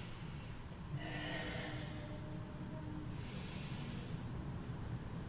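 A woman's audible breathing: a long, soft breath starting about a second in, then a shorter, hissier breath around three seconds in.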